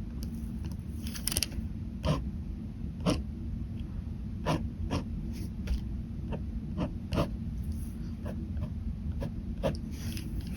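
Ballpoint pen making short, quick strokes on paper, about fifteen scratches at irregular intervals, over a steady low hum.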